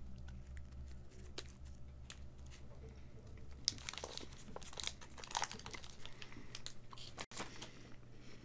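Candy wrapper crinkling and rustling in the hands, with scattered soft crackles clustered around the middle, while a chocolate-covered soft candy is quietly chewed.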